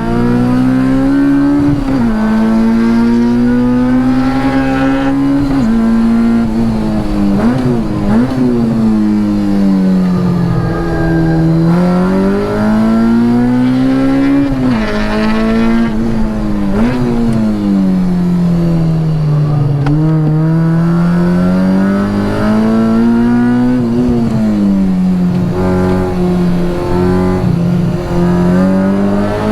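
K20-swapped Honda Integra Type R four-cylinder engine on track, pulling hard with its revs climbing again and again. The revs drop sharply at each upshift and wind down slowly under braking before pulling once more.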